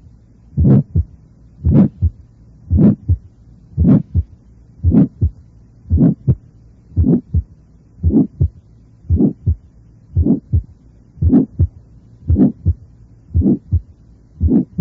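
Recorded heart sounds through a stethoscope, a regular beat of about one per second, each beat a first heart sound run into a harsh systolic murmur and then a shorter second heart sound. The murmur is a teaching example of how a harsh murmur's timbre changes when its lower frequencies are cut away, as with the diaphragm chestpiece.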